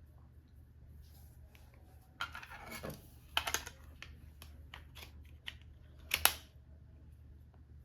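Small objects being handled close to the microphone: a series of light clicks and taps with a rustle about two seconds in and a sharper snap a little after six seconds.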